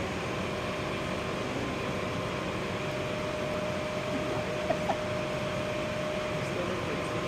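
Daikin gas furnace running: a steady rushing fan noise with a steady hum, and two light ticks about five seconds in.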